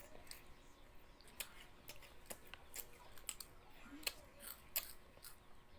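Someone chewing crunchy Cheese Ring snacks, with faint, irregular crackles and clicks.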